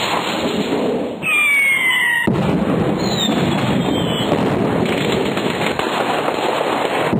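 Firework rocket sound effect: a rushing hiss of the launch, then a whistle falling slightly in pitch about a second in. A little after two seconds it breaks suddenly into continuous crackling fireworks.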